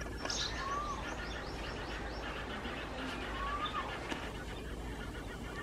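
House sparrows chirping: a few short high chirps and a faint run of quick repeated high notes, plus a few brief rising calls, over a steady background hiss.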